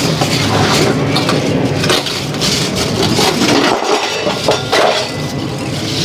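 Scrap metal from an air-conditioning unit being broken down: continuous clattering, crunching and knocking of sheet metal and parts being handled and tossed.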